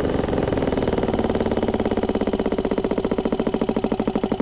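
1960s 3-kilowatt generator's petrol engine running steadily with a rapid, even pulsing beat, carrying only a light electrical load.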